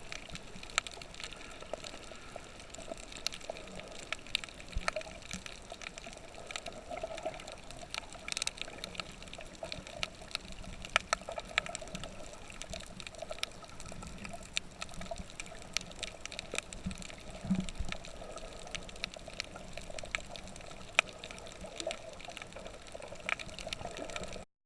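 Water sound: a steady hiss full of frequent sharp clicks and crackles, cutting off abruptly near the end.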